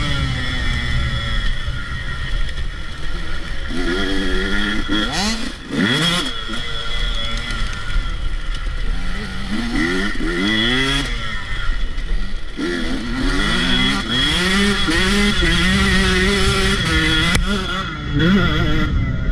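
Dirt bike engine under riding load, revving up and dropping back again and again as the rider works the throttle and shifts gears.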